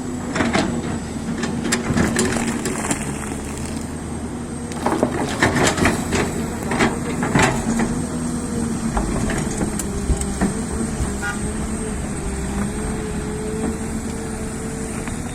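Hyundai excavator's diesel engine running steadily, with clusters of sharp knocks and cracks in the first few seconds and again midway, as the machine digs and crushes through rock and soil.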